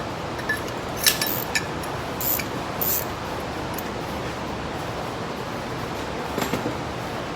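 Steady background hiss in a workshop, with a few short, light clicks and taps of tools or parts being handled: a cluster about a second in, and one more near the end.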